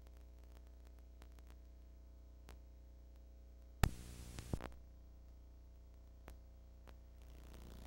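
VHS tape playback noise: a steady low hum with faint scattered ticks. About four seconds in, a sudden loud burst of static crackle lasts under a second, where the tape glitches at a cut between recorded clips.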